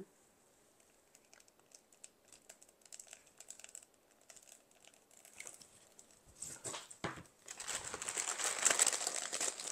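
Faint scattered ticks of handling, then a plastic bag of Spanish moss crinkling as the dry moss is pulled out of it, starting about six and a half seconds in and loudest near the end.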